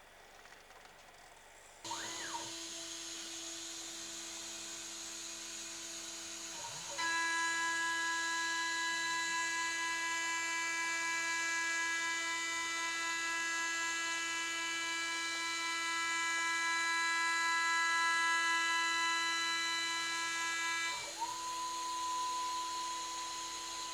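CNC milling machine's spindle and motors running with a steady high whine. It starts suddenly about two seconds in, grows louder and fuller about seven seconds in, and drops back to a single lower whine near the end.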